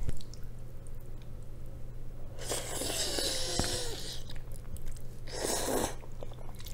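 A big mouthful of black bean noodles (jajangmyeon) slurped in with a long, loud sucking slurp about two and a half seconds in, then chewed, with a second, shorter slurp about five seconds in.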